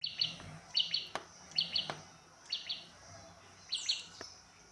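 A small bird chirping in short repeated phrases of two or three quick high notes, about one phrase a second, with a few soft clicks in between.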